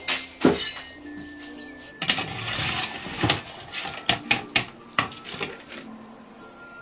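Scattered metallic clinks and knocks of a ladle and skimmer against a large aluminium pot as boiled bones are lifted out, over faint background music.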